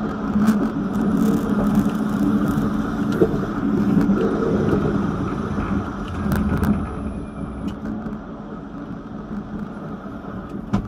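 Vityaz-M tram running along the track, a steady rumble of wheels on rail and traction motors, played back at double speed. It is louder in the first half and eases off after about six seconds, with a few sharp clicks.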